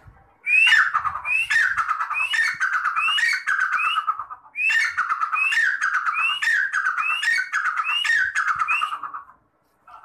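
Grey francolin (teetar) calling loudly in two bouts of about five repeated notes each. Each note is a quick rising whistle dropping into a rattling trill. The first bout starts about half a second in, the second follows after a short break, and the calls cut off abruptly near the end.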